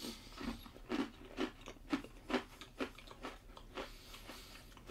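A person chewing a mouthful of sweet ration biscuit close to the microphone, with a crunch about twice a second.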